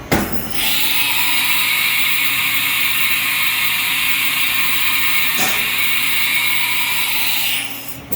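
1994 Haas VF-3 vertical machining center's umbrella-type tool changer swapping a tool. A click, then a loud steady hiss for about seven seconds with a short knock partway through, which stops near the end.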